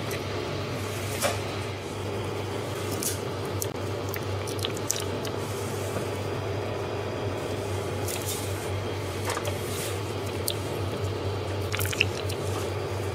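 Steady low hum of the self-serve coffee counter, with scattered small clicks and crinkles of a plastic coffee-creamer portion cup and its foil lid being squeezed and handled, the sharpest click near the end.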